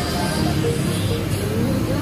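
Music playing over the steady rumble of busy street traffic.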